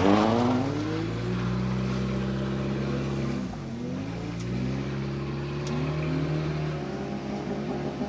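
Car engine pulling through the revs: the pitch climbs, holds, drops sharply and comes straight back up about three and a half seconds in, like a gear change or a lift of the throttle, then holds steady and eases off near the end.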